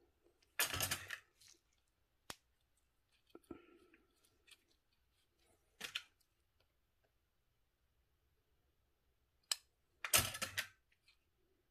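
Hand work on a bicycle hub: a handful of short scrapes and clicks as tools and parts are handled, spaced a few seconds apart, the loudest just under a second in and again near the end.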